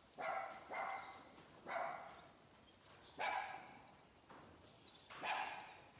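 A dog barking: five short single barks, irregularly spaced.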